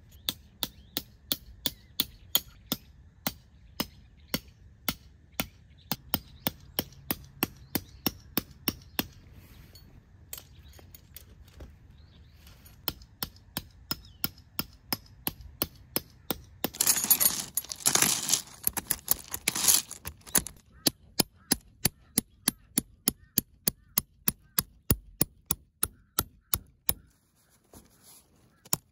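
Pegs being hammered into the ground to pitch a windscreen: sharp metallic strikes, about two a second, in runs with pauses. Near the middle, a few seconds of rustling or crumpling.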